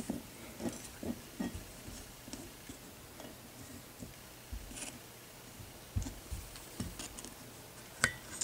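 Small metal pick scraping and clicking against a brake caliper piston and its rubber dust boot as the boot is pried out of the cast-iron caliper bore, in scattered light ticks and scrapes. One sharp metal click near the end is the loudest.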